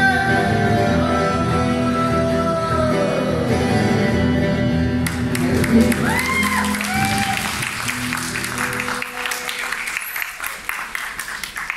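A live song ends: a man sings a held line over electric guitar and backing music. About five seconds in, the audience starts applauding, with a few shouts, while the music fades out.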